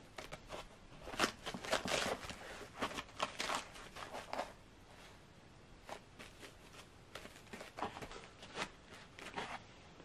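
Foam packing inserts being handled and pressed into a cardboard shipping box: a run of short rustles, creaks and scrapes, busiest in the first few seconds and sparser later.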